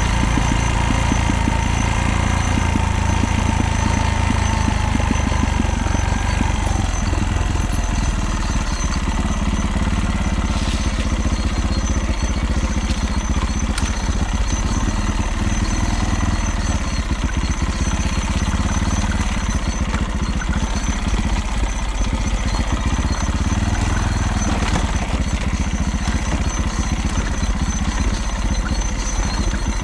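Vehicle engine running steadily with a continuous rapid rattling clatter: the abnormal noise whose cause the owner cannot find. A whine eases down in pitch over the first few seconds.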